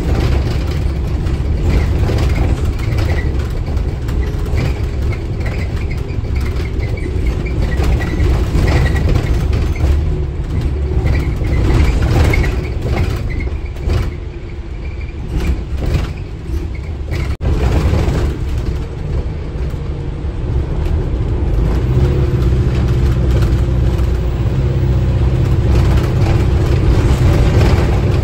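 Cabin sound of an Alexander Dennis Enviro400H diesel-electric hybrid double-decker bus on the move: a steady low rumble of drivetrain and road, with a faint high whine in the first half. About two-thirds of the way in, a steadier low engine hum sets in.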